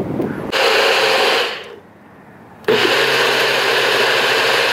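NutriBullet personal blender running in two bursts, a short one of about a second and then a longer one of about two seconds after a brief pause, its blade chopping coconut meat in coconut water into coconut milk.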